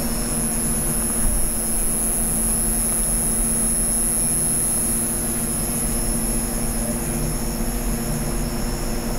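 NATPLUS rechargeable nail drill (e-file) motor running steadily, a high whine over a low hum, while its speed is turned down toward the lowest setting.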